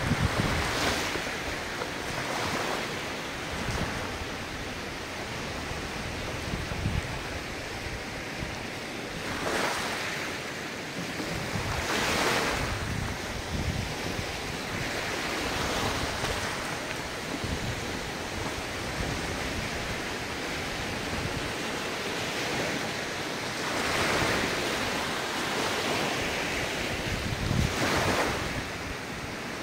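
Ocean surf: a steady hiss of water with waves breaking and washing in every few seconds, and wind rumbling on the microphone at times.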